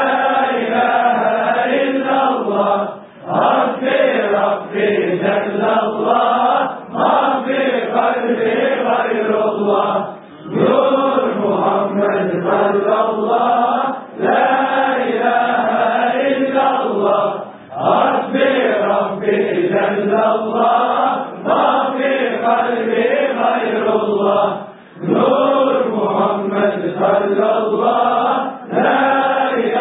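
A group of men chanting a Sufi dhikr refrain in unison, repeating Arabic phrases in the name of God, with short breaks for breath every few seconds.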